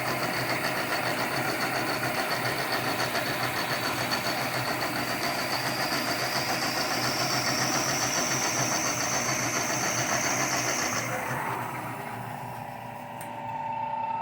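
1980 Shizuoka AN-S CNC milling machine reaming holes in 1018 steel: a steady machining noise with a high whine that slowly rises in pitch. The noise and whine cut off about eleven seconds in, and near the end a different, lower steady hum begins.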